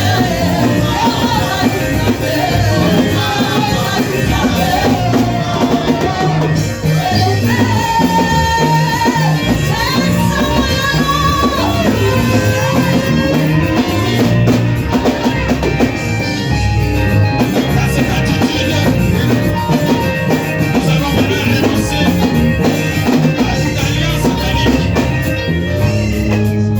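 Band music with a steady drum-and-bass beat and a singing voice carrying the melody.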